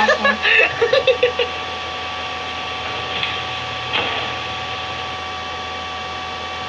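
Fail-compilation audio played through computer speakers and picked up in the room. A few short voice-like sounds come in the first second and a half, then a steady hiss with a thin constant whine, and a single brief thud about four seconds in.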